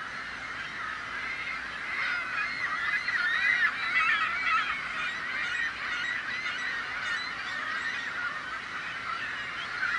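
A flock of gulls calling all at once, a dense tangle of overlapping squawks, busier and louder from about two seconds in.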